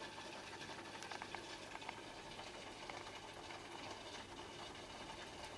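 Aquarium air bubbler running: a faint, steady fizz of rising air bubbles with scattered small pops and ticks.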